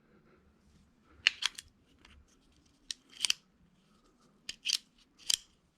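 Rock Island revolver's action being worked by hand: a run of sharp metallic clicks in small clusters from about a second in, as the hammer is cocked and the cylinder turns and locks. The action is smooth.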